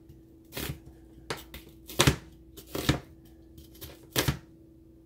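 Kitchen knife cutting through a freezer-chilled onion onto a plastic cutting board: about six separate cuts, the loudest about two and three seconds in and another near the end.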